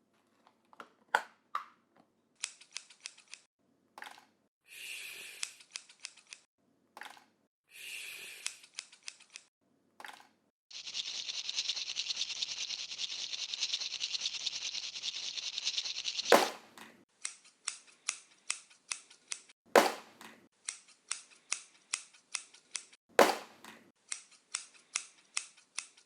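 Scissors snipping, in short bursts and then in a quick regular run of about three snips a second, with a louder sharp snap every few seconds. In the middle a steady rasping noise runs for about five seconds.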